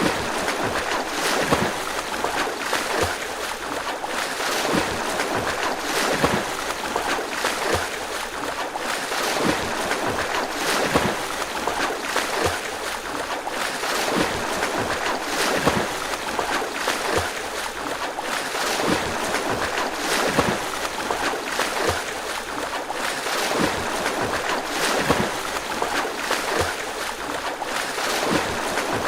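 A person swimming: a steady rhythm of splashing strokes, each under a second or so apart, over a constant wash of churned water.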